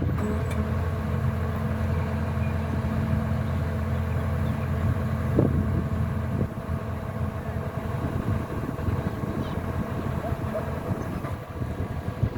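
Kubota DC-105X combine harvester's diesel engine running steadily; it gets a little quieter about six and a half seconds in.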